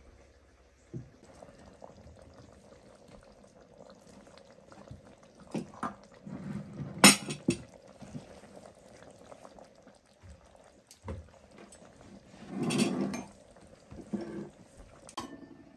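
Scattered knocks and clicks of a utensil against a cooking pot, with a sharp clink about seven seconds in, and a short pour of liquid about thirteen seconds in.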